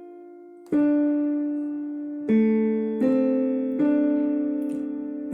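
Piano playing a slow, simple melody: four notes or small chords struck in turn, each left to ring and fade under the next.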